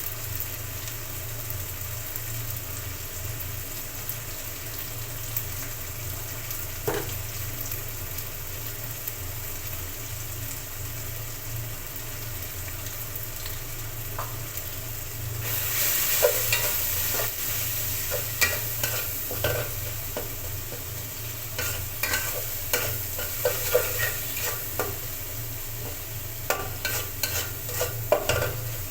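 Food frying in oil in a cooking pan, sizzling steadily. About halfway through the sizzle gets louder, and a spatula starts scraping and knocking against the pan in irregular strokes as the food is stirred.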